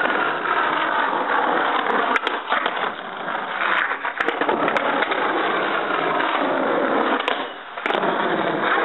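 Skateboard wheels rolling over rough asphalt in a steady grinding rumble as skaters ride past, with a few sharp clacks from the boards.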